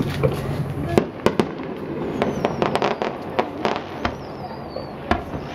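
Fireworks going off: a quick, irregular series of sharp bangs and crackles, with several high whistles that glide down in pitch between them.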